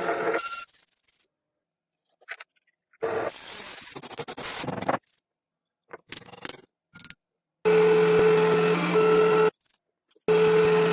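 A small power tool running with a steady hum and scraping against metal, in short bursts that cut off suddenly into silence.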